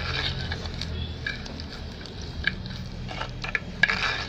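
Onions and spices with chili powder and curry powder frying in oil in a pan while being stirred with a spoon: a steady sizzle, with a handful of short scrapes and clicks of the spoon against the pan.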